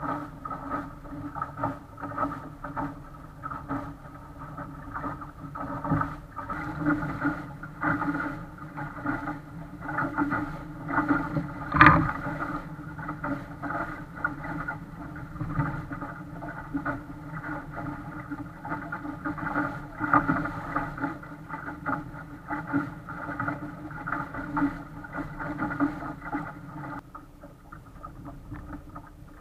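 Water rushing and splashing against the hull of a small sailboat under way, with a steady hum of wind and boat noise. A loud knock comes about twelve seconds in.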